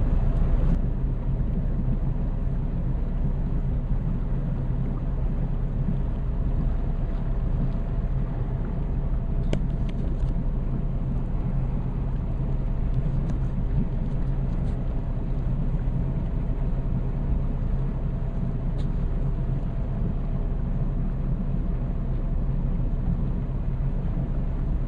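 Motorboat engine running at a steady speed while underway, a low, even drone that does not change in pitch.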